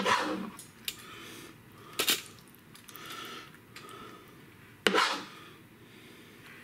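Metal spoon scooping ground-beef filling and clinking against the dish. Sharp clinks come at the start, about two seconds in and about five seconds in, with softer scraping between them.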